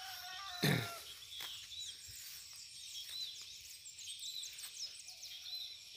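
Small birds chirping and calling over and over, with a steady high insect whine behind them. A brief louder sound with a falling pitch stands out less than a second in.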